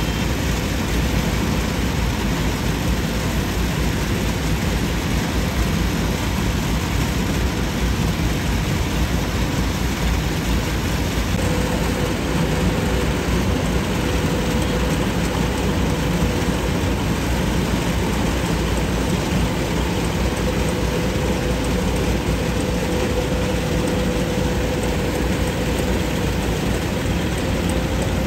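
Kubota DC-105X combine harvester running steadily under load, its engine, header and threshing drum cutting and threshing lodged rice. A faint steady whine joins the machine noise about eleven seconds in.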